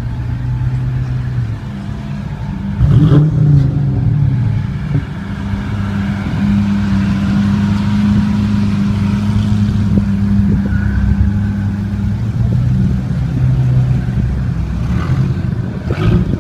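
Sports car engines, a Mercedes SL, a Dodge Viper and a Nissan GT-R among them, running low and steady as the cars roll past at walking pace. One engine is revved briefly about three seconds in, the loudest moment, and falls back to a low burble.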